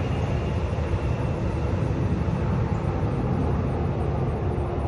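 Steady outdoor background rumble, strongest in the low end, with no distinct events.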